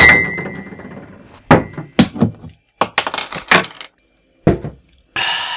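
Glass beer bottles clinking and knocking: a loud clink at the start that rings on for about two seconds, then a run of sharper knocks and clicks, and a short hiss near the end.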